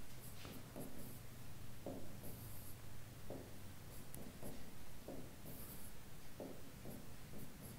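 Marker pen writing on a whiteboard: a series of short, irregular scratching strokes, with a couple of brief high squeaks.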